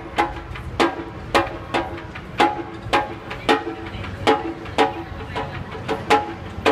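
Yagura-daiko, the taiko drum atop the sumo drum tower, beaten by a yobidashi in the ichiban-daiko morning drumming: sharp strikes about two a second in a steady rhythm, each ringing briefly.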